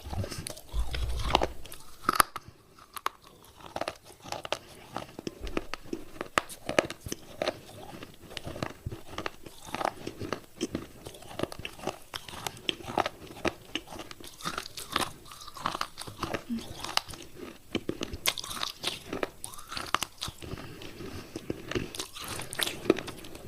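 Close-up chewing and biting of wet baked clay pot pieces: a steady run of irregular crunches and gritty crackles, with a few louder snaps.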